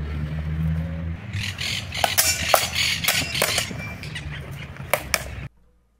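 Longswords clashing in sparring: a run of sharp blade-on-blade strikes, some ringing briefly, that cuts off abruptly near the end.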